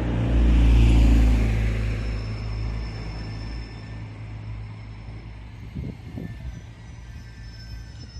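A vehicle passing close by, loudest with a heavy low rumble about a second in, then fading away. Two short, low knocks come about six seconds in.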